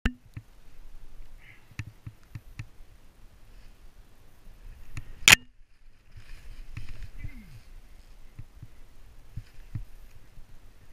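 Skis running and chattering over bumpy, tracked-up snow, picked up by a helmet-mounted camera: a low rumble with scattered knocks and clicks, and one sharp loud knock about five seconds in.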